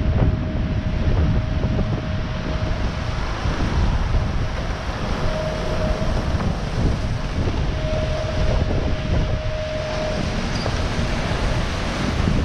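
Wind buffeting the microphone and sea water rushing past the hull of an IMOCA racing yacht under sail, with a faint steady whine that comes and goes three or four times.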